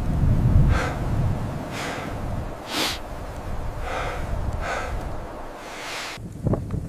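Heavy, rasping breaths, about one a second, over a low rumble.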